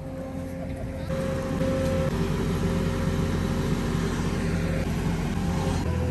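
A truck running steadily: an even engine hum with road noise that grows louder about a second in and then holds level.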